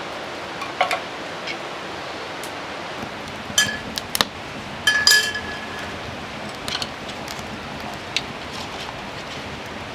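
Steady hiss of rain with a few sharp clinks of camp cookware or utensils being handled, the loudest about five seconds in ringing briefly.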